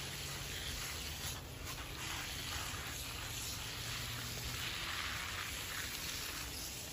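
Steady low outdoor background hiss, with soft rustles of kale leaves being handled.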